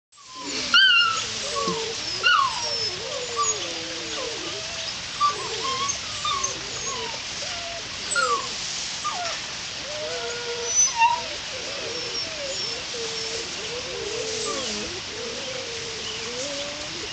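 Akita puppy whining almost nonstop in play, its whines wavering up and down in pitch, broken by a few louder, sharper yips.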